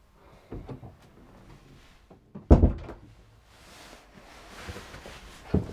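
A few soft knocks, then one heavy thud about two and a half seconds in, and a shorter thump near the end.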